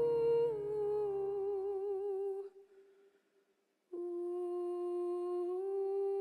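A woman's voice holds a long sung note with vibrato over soft accompaniment, which fades out about two and a half seconds in. After a moment of silence a steady held note starts abruptly and steps slightly higher near the end.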